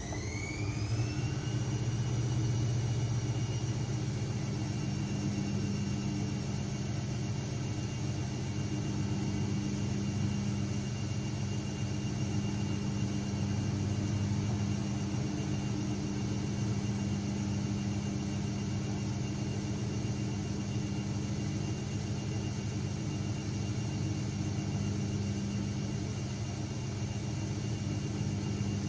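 AEG Lavamat 6610 washing machine's drum motor spinning up: a rising whine levels off about a second in. The drum then runs at a steady speed, with an even whine over a steady low hum.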